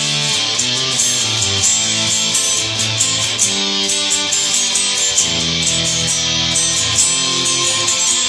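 Electric guitar played through an amplifier: held chords that change every second or so, with steady picking.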